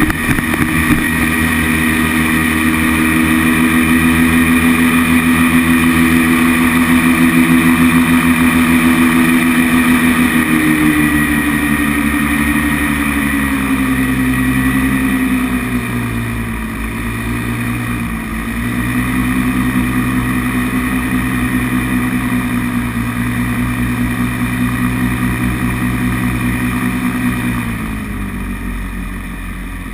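Paramotor engine and propeller running at high throttle in flight. The engine note eases down a little about a third of the way in, dips briefly twice in the middle, then throttles back near the end.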